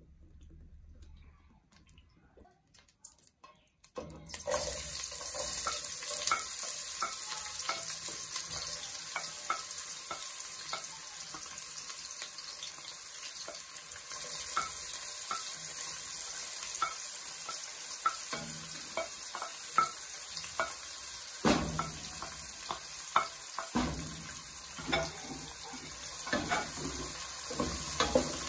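Chopped onions, garlic, hot pepper and leeks frying in oil in an aluminium pot: a steady sizzle with many small crackles, starting about four seconds in. Near the end there are a few louder knocks of stirring against the pot.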